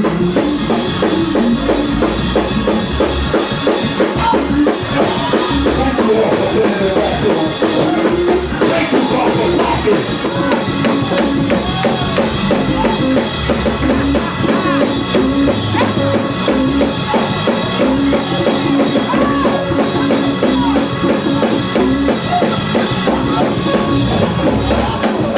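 Live gospel praise-break music driven by a drum kit, with a steady, dense beat and bass drum.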